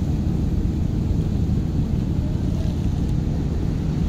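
Steady low rumble of wind buffeting the microphone outdoors, with no distinct events.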